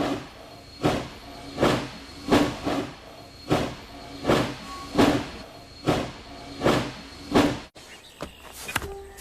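Steam locomotive chuffing slowly and steadily, about one exhaust beat every three-quarters of a second. The beats cut off abruptly about three-quarters of the way through, leaving a quieter stretch with a few faint clicks.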